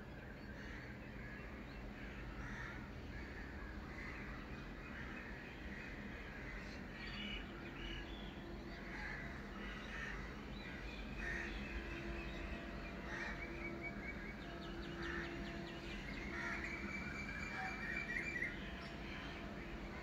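Birds calling in a dawn chorus: many short calls and chirps, coming and going and busier in the second half, over a low steady background hum.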